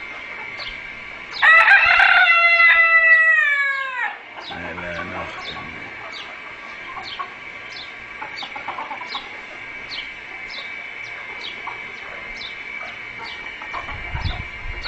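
A rooster crows once, loud and about two and a half seconds long, the pitch dropping at the end. Short high chirps repeat about twice a second behind it.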